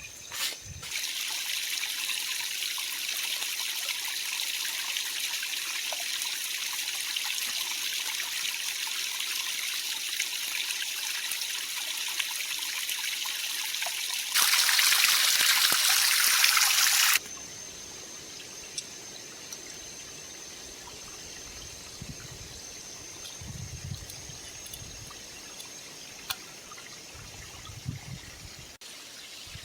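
Creek water trickling and running steadily. It turns abruptly louder for about three seconds in the middle, then fainter, with a few soft low knocks.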